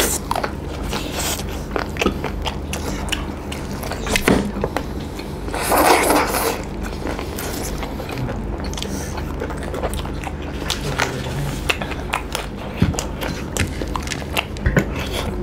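Two people eating fried chicken legs and rice with their hands close to the microphone: biting, chewing and lip-smacking with scattered small clicks, over a steady low hum. A louder rush of noise lasting under a second comes about six seconds in.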